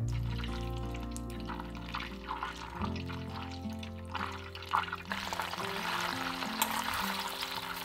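Butter and garlic sizzling as they melt in a small stainless steel saucepan over low heat, the sizzle growing denser about five seconds in as the butter foams. Background music plays throughout.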